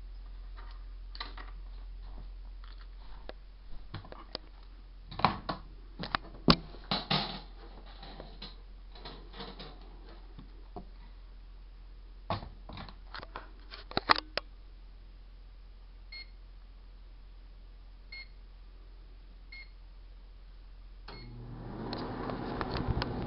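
A run of clicks and knocks, then four short electronic keypad beeps about two seconds apart; near the end a GE Dual Wave microwave oven starts running with a steady hum.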